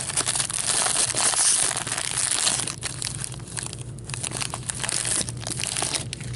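Plastic wrapping of a hockey card pack crinkling and crackling as it is torn open and handled, loudest over the first two or three seconds, then fainter scattered crackles.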